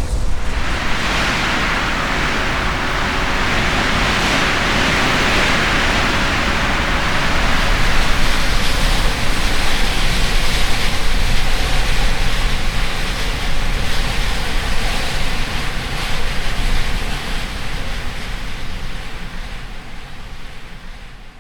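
High desert wind blowing hard, a rushing hiss over a deep low rumble that swells a few seconds in and fades out near the end.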